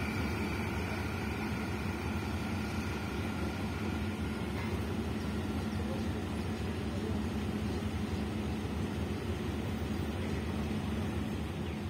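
Diesel locomotive engine running steadily with a low, even hum, and a faint high whine that fades out about four seconds in.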